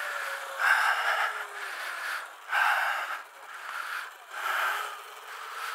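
A rider breathing hard after laps on the mini MX track, a few heavy breaths about two seconds apart. Under them a faint whine from the Light Bee's electric motor falls in pitch as the bike slows, then rises slightly near the end.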